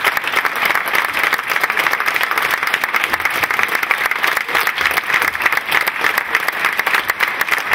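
Theatre audience applauding steadily, a dense even patter of many hands clapping.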